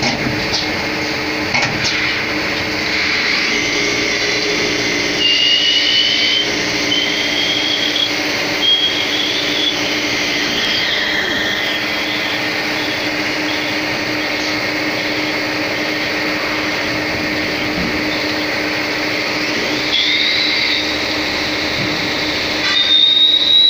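CNC lathe with live tooling running a machining cycle: a steady hum under high motor whines that rise and step in pitch several times as the spindle and live tool speed up and change speed, with a fresh rising whine near the end.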